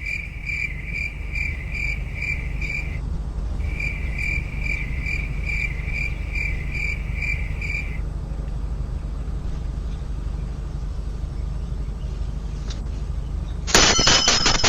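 A cricket chirping in regular chirps about two a second, with a short pause about three seconds in, stopping about eight seconds in, over a steady low rumble. Near the end a sudden loud burst of noise starts.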